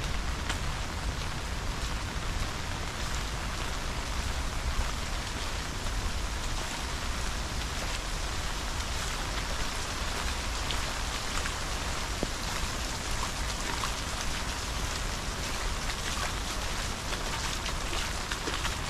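Steady rain falling, with many individual drops ticking sharply over a constant hiss and a low rumble underneath.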